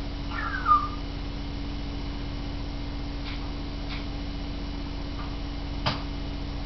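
African grey parrot giving one short falling whistle near the start, followed by a few faint clicks and one sharper click about six seconds in, over a steady low hum.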